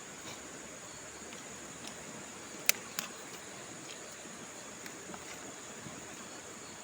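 Faint, steady background hiss with a thin high steady tone, broken by two short sharp clicks about a third of a second apart midway through.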